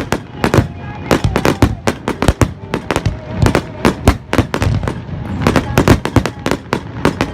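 A fireworks display: many shells bursting in rapid succession, several loud bangs a second, like a finale barrage.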